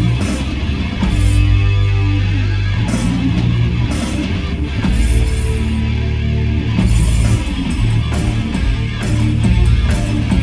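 A rock band playing loudly at a sound check, heavy-metal style: electric guitar and bass hold long low notes that change every second or two, with bright crashes every few seconds.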